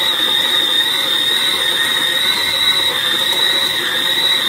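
LILPARTNER tilt-head electric stand mixer running, its dough hook kneading a ball of dough in the stainless steel bowl, with a steady high-pitched motor whine.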